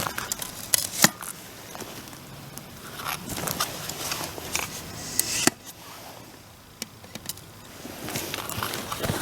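Wood bonfire crackling, with irregular sharp pops and snaps.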